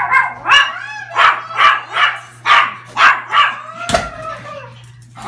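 Pomeranians yelping and whining in excited greeting as their owner comes home: short, high-pitched cries, about two a second. A single sharp thump comes about four seconds in, over a faint steady low hum.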